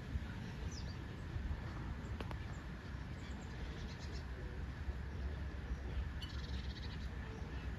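A pig snuffling and chewing at its feed dish over a steady low rumble. Birds give a few short chirps, with a quick chattering run about six seconds in.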